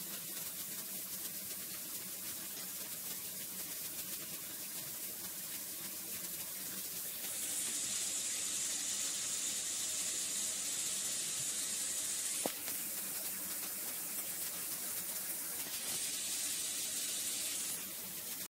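Steady hiss over a faint low hum, louder and brighter for about five seconds in the middle and again briefly near the end, with a single click about twelve seconds in.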